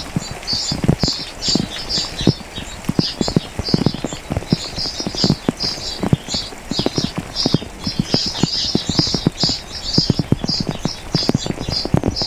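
Rain dripping, with big drops knocking irregularly, several a second, close to the microphone. Over it, small birds chirp high and rapidly throughout.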